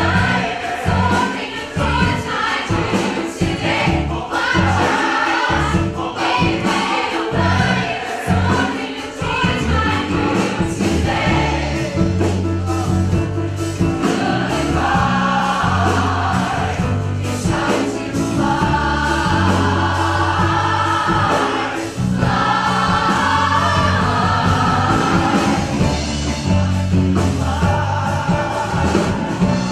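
Large mixed choir of men and women singing together with piano, bass and drums.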